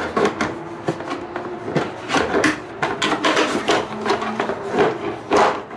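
Hard plastic battery cover on a Gen4 Ski-Doo snowmobile being worked into place by hand, rubbing and scraping against the surrounding plastic body panels, with a string of clicks and knocks as it seats.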